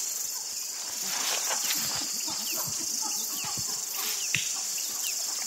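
Steady high-pitched insect chorus, with short faint chirps scattered through it.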